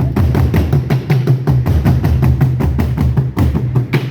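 African drums playing together in a fast, dense rhythm, with many quick strokes and a deep low drum underneath.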